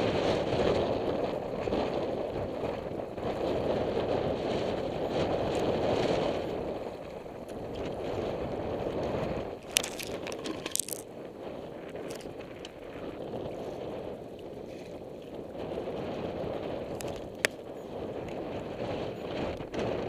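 Wind blowing in gusts, strongest in the first few seconds and then easing, with a few sharp clicks about halfway through and one more near the end.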